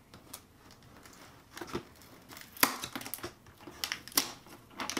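A knife slitting the packing tape along a cardboard shipping box: scraping and crackling with a few sharp snaps of tape and cardboard, the loudest about two and a half seconds in.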